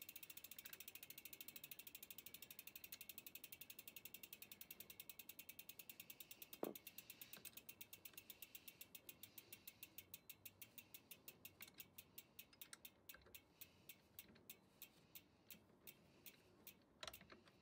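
Faint ticking of an e-mountain bike's rear freehub pawls as the rear wheel coasts: the clicks come fast at first and slow steadily as the wheel spins down. A single knock about six and a half seconds in, and another near the end.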